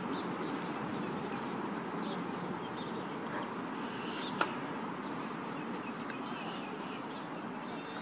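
Steady outdoor background noise with faint, scattered bird calls, and one sharp click about halfway through.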